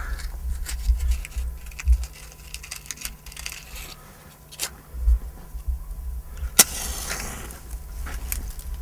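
Matches being struck on a matchbox and dry twigs and roots handled, as kindling is lit: scattered clicks and rustles over a low rumble. About two-thirds through, one sharp strike is followed by a brief hiss.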